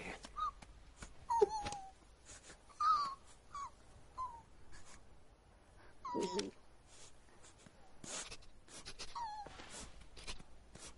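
Animated sabre-toothed squirrels' wordless vocal squeaks and whimpers: a string of short high squeaks, several dropping in pitch, the loudest about a second and a half in and again about six seconds in, with small clicks and rustles between.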